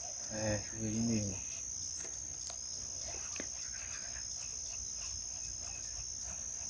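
Insects chirring in one steady, high, unbroken tone, with a faint voice about a second in.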